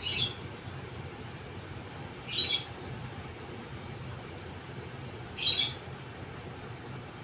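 Three short, high-pitched chirps, evenly spaced about three seconds apart, over a steady low hum and hiss.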